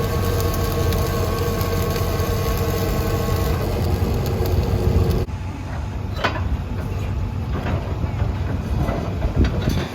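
Heavy machinery engine running with a steady drone. About five seconds in the sound changes abruptly to a rougher rumble with a few sharp metallic clanks, as of casing pipe being handled.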